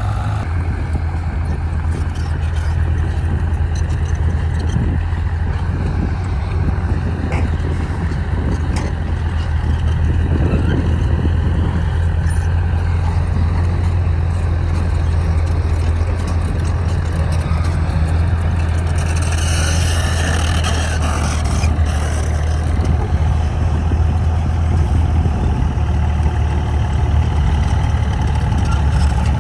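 Heavy diesel engine running steadily with a deep low hum, and a hissing burst of a few seconds about two-thirds of the way through.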